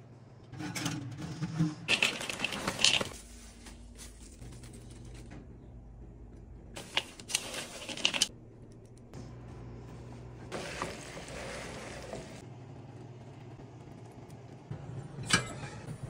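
Kitchen food-prep handling sounds in separate bursts: a clattering burst near the start as a tray of raw chicken drumsticks is moved, then the rustle of hands tossing raw leafy greens and sliced red onion in a bowl, and a sharp click near the end.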